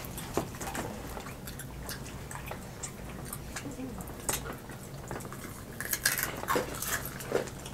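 Eating fried chicken wings up close: crisp breading crunching and crackling between bites and chewing, in scattered sharp clicks that come thicker about six seconds in. A faint steady low hum runs underneath.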